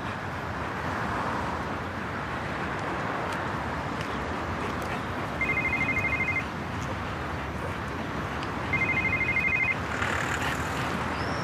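Mobile phone ringing: two short trilling rings of two high tones, about three seconds apart, over steady outdoor background noise.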